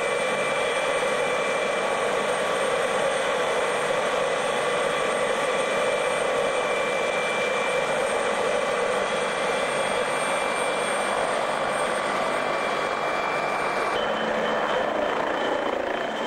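Helicopter running on the ground with its rotors turning: a steady turbine whine over engine and rotor noise. About 14 seconds in the sound changes as the helicopter lifts off.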